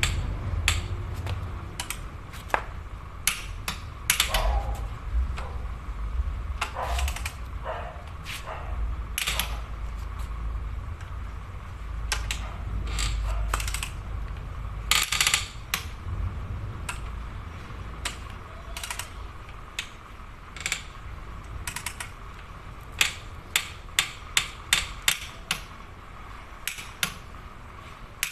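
Long ratchet-type torque wrench clicking on connecting-rod cap bolts as they are tightened to torque, with scattered single clicks, one louder click about halfway, and a quick run of about seven even ratchet clicks near the end.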